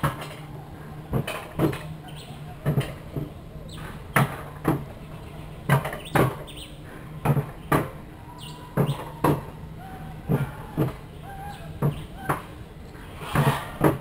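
A steel-rail bobsled's wheels clacking over the track in pairs, roughly every second and a half, over a steady low rolling hum.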